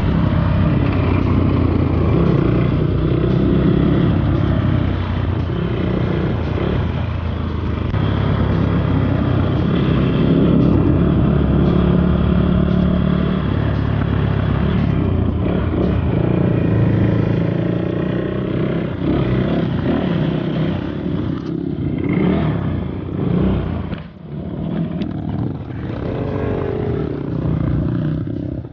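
Motorcycle engine running through changing throttle on a rough dirt track, its pitch rising and falling. Knocks and rattles come in over the latter part, and the engine drops back briefly near the end.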